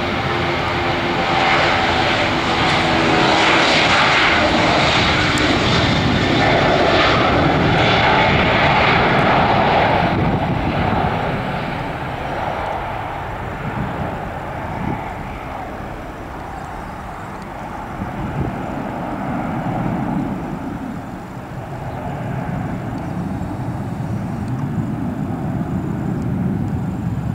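Boeing 737-800's twin CFM56-7B turbofans at takeoff thrust as the jet rolls down the runway and climbs away. The loud roar peaks in the first ten seconds, then fades to a lower rumble as the aircraft lifts off and recedes.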